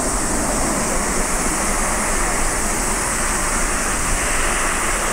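Twin-engine jet airliner's engines at takeoff power on the runway: a loud, steady roar.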